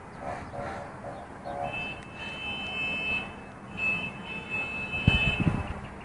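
A high-pitched electronic alarm tone sounding in two long stretches, after a few short, lower beeps near the start. A loud low rush comes near the end.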